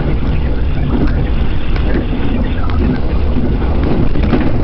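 Moving train heard from inside the carriage: a steady, loud, mostly low rumble of the wheels running on the rails.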